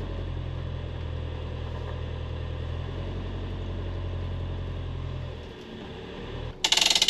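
Motorhome's truck-chassis engine idling steadily just after a start, fading out about five and a half seconds in. A sudden loud burst of noise comes just before the end.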